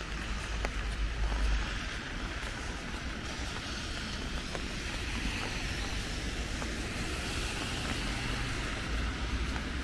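Steady rain pattering on an umbrella, with scattered sharper drop ticks. A low rumble comes in at the start and again near the end.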